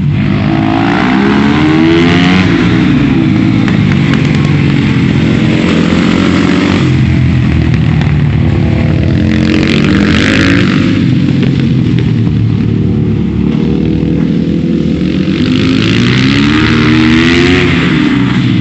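Supermoto motorcycle engine, loud, revving up and dropping back again and again as it is ridden through the gears.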